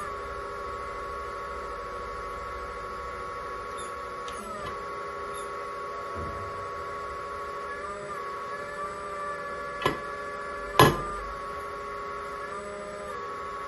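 Hydraulic pump of an RC Komatsu PC360 scale excavator whining steadily. It sags briefly in pitch three times as the valves are worked to move the arm and bucket. Near the end come two sharp knocks about a second apart, the second the louder.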